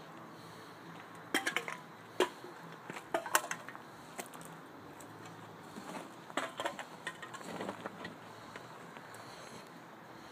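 Scattered light clinks and taps, several in quick clusters, over a faint steady hiss.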